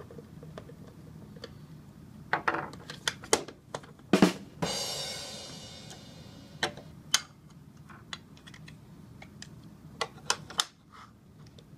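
Hard plastic parts of a Yonanas machine being handled and fitted together on a tabletop: scattered clicks and knocks, the loudest about four seconds in, followed by a couple of seconds of fading scraping noise.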